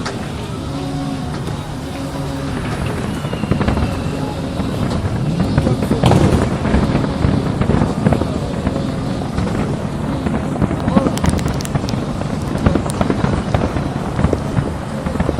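Fireworks display going off: sharp bangs and crackles that come thick and fast from about six seconds in.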